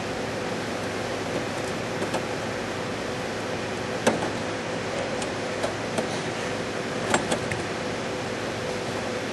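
A few light clicks and taps of small metal parts being handled and fitted, the loudest about four seconds in and two close together near seven seconds, over a steady background hum. The parts are the mesh screen's straps and screws going onto the grille's mounting brackets.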